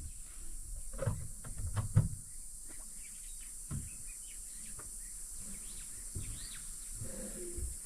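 Outdoor safari ambience: scattered short bird chirps over a steady high hiss, with a few dull low thumps in the first two seconds.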